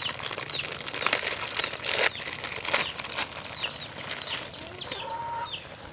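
Plastic instant-noodle packet crinkling as it is handled, densest in the first three seconds or so, with short falling bird chirps repeating in the background.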